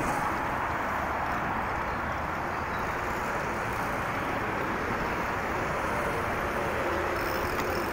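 Steady traffic noise from a busy multi-lane road alongside, with a low engine drone joining near the end.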